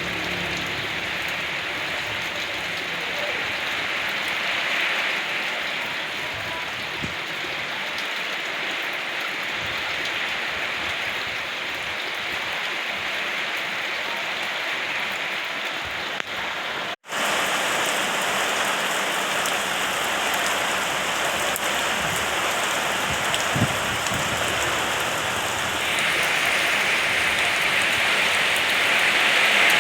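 Steady rain falling, an even hiss with a few scattered drips. It cuts out for an instant about seventeen seconds in, then comes back and grows heavier near the end.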